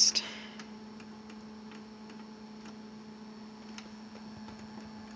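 HP LaserJet 5M laser printer sitting idle with a steady hum, while its control-panel buttons are pressed, giving faint, irregular clicks. A brief louder noise comes right at the start.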